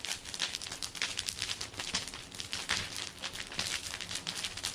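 Large wood bonfire crackling, a dense irregular run of sharp snaps.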